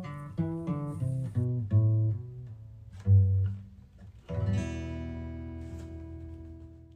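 Acoustic guitar playing the closing bars of a song: a run of single picked notes, then a final chord strummed about four seconds in and left to ring out and fade.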